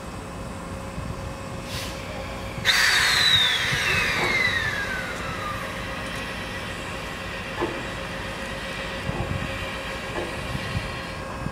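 JNR Class C62 No. 2 steam locomotive letting off a sudden loud burst of steam hiss about three seconds in. A whistling tone slides down in pitch as the burst eases over the next few seconds, then a steady lower hiss with a few light clanks.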